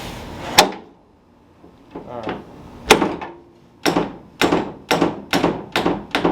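The steel hood of a 1978 El Camino is brought down onto a newly installed hood latch: a sharp bang about half a second in, another near three seconds, then six quicker knocks about two a second. The latch is out of alignment and does not catch.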